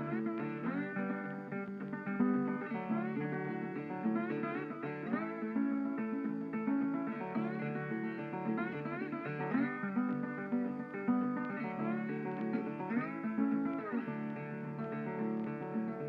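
Background music: plucked guitar playing a melody with sliding notes over a steady bass line.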